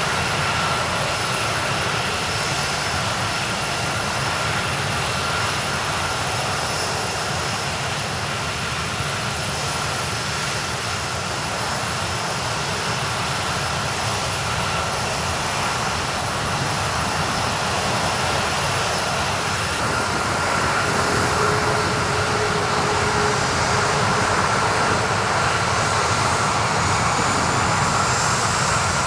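KC-135 Stratotanker jet engines (CFM F108 turbofans) running at taxi power: a steady engine noise with high-pitched whining tones. About two-thirds of the way in, a lower hum joins and the sound grows slightly louder as a tanker passes close.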